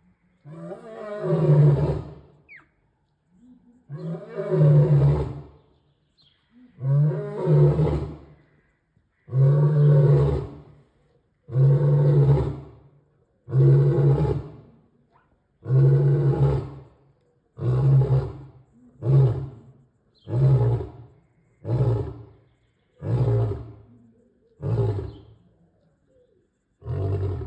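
Male lion roaring: a long bout of about fourteen deep roars. The first are full roars of about two seconds each, and they shorten into briefer grunts that come closer together toward the end.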